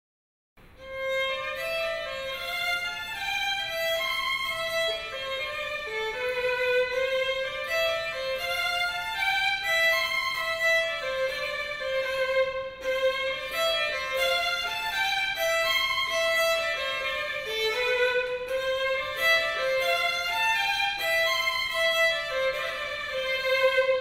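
A violin playing a melody, one sustained note flowing into the next.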